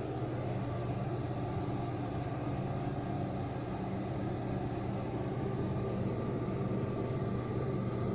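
Pressure-assist toilet tank refilling after a flush: a steady, low hum of water running into the pressure vessel.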